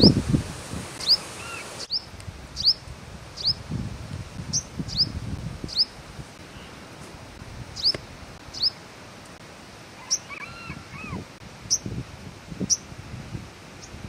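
Purple sunbird giving short, sharp high calls, each sweeping down in pitch, about one a second, with a few lower looping notes about ten seconds in. Soft rustling runs underneath.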